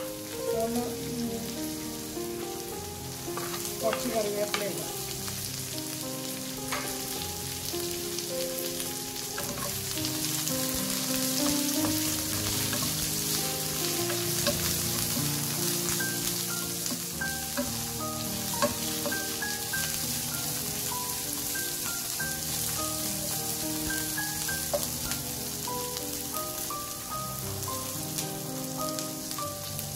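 Sliced onions, green chillies, garlic and curry leaves sizzling in hot oil in a nonstick frying pan, with a spatula stirring and knocking against the pan a few times in the first few seconds.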